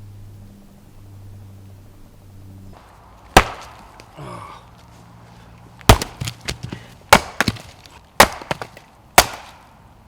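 Firewood being chopped: sharp wooden chops, the first about three seconds in, then a run of them roughly one a second with lighter knocks between. A low steady hum stops just before the chopping begins.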